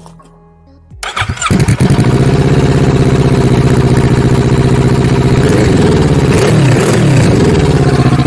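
2018 Kawasaki Z650's parallel-twin engine breathing through an Ixil aftermarket exhaust: the starter cranks briefly about a second in, the engine catches, then settles into a loud, steady idle.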